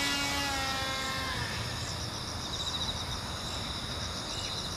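Electric motor and propeller of a small homemade foam-board RC airplane running at a steady pitch just after a hand launch, fading and dropping slightly in pitch within the first second and a half as the plane flies away. Faint insect chirping follows.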